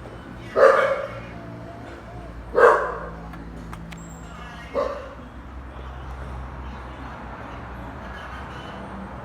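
A dog barking three times, about two seconds apart, the third bark quieter.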